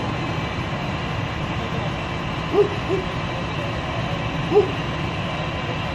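Steady low engine rumble, such as that of the fire truck standing alongside idling. Three short low hoots stand out over it: two close together about two and a half seconds in and one more about four and a half seconds in.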